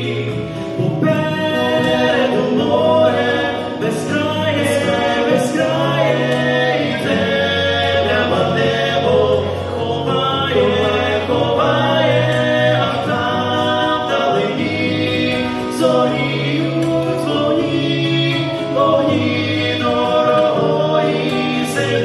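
Two men singing a worship song in duet through handheld microphones, over an instrumental accompaniment with a held bass line that shifts every couple of seconds.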